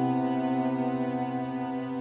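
Slow, sad background music: a sustained chord that fades gradually.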